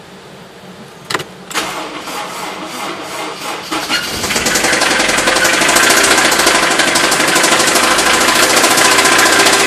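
Honda S2000's four-cylinder engine cranking and catching about a second and a half in, then running loud and steady with a rapid, heavy knocking: rod knock from a worn connecting-rod bearing.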